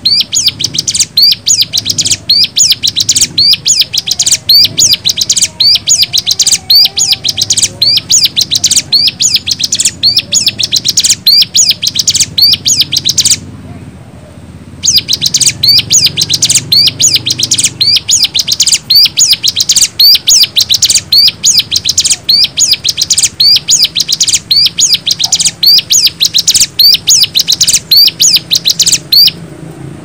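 Plain prinia (cimblek) song from a tutor recording: a loud, fast run of repeated high notes that breaks off briefly about 13 seconds in and then resumes, over a faint low hum.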